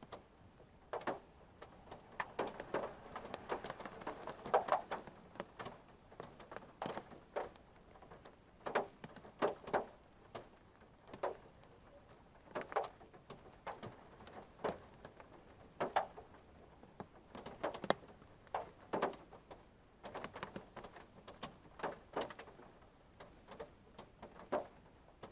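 Raindrops tapping irregularly on a parked car's roof and windshield, heard from inside the car: scattered sharp ticks, sometimes close together, sometimes a second or more apart.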